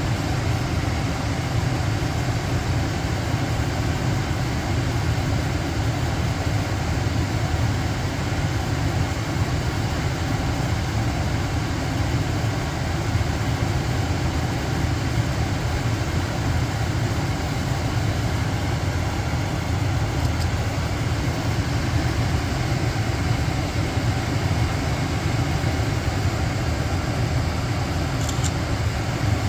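Carrier gas furnace running: a steady low hum with a rush of air, unchanging throughout.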